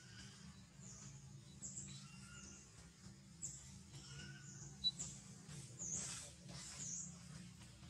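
Faint, high-pitched bird chirps, each a quick dip and rise in pitch, repeating irregularly every second or so over a low steady hum.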